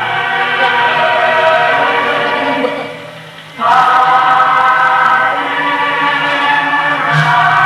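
A choir singing long held notes, with a short break between phrases about three seconds in.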